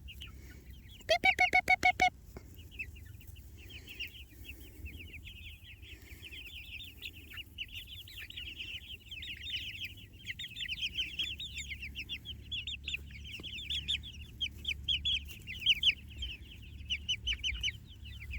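A flock of Jersey Giant meat chickens calling, many high peeping calls overlapping steadily from about three seconds in. About a second in comes a louder, brief, rapid run of lower calls.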